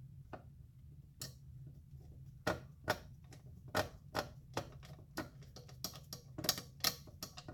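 Irregular sharp clicks and ticks of small screws and plastic parts being handled and fitted on a vacuum pump's housing, sparse at first and then several a second, over a low steady hum.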